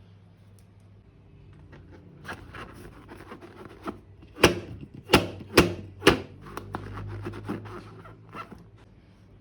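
Close-up handling of slime-making materials: scattered small clicks and crackles, with four loud sharp snaps in quick succession around the middle.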